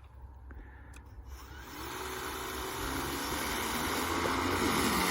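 A motor or engine running, its rushing noise and a faint steady tone growing steadily louder.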